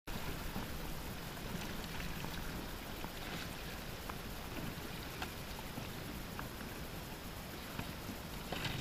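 Steady rush of wind and water around a small motorboat lying at sea with no engine tone, scattered with a few light clicks and knocks and a slightly louder rustle near the end.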